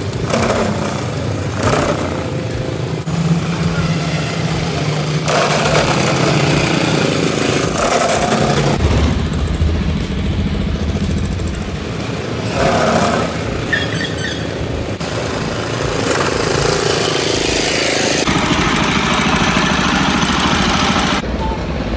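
Go-kart engines running and revving as karts drive around the track, the sound changing abruptly every few seconds.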